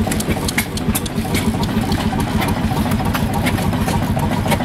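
Old hit-and-miss stationary gas engine running steadily on a fast, even firing beat, firing on every stroke under the steady load of a belt-driven blower. Sharp clicks sound over it.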